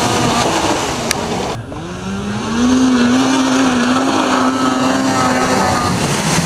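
Snowmobile engine held at high revs as the sled skims across water. The sound changes abruptly about one and a half seconds in, then a steady, slightly wavering engine note holds for several seconds.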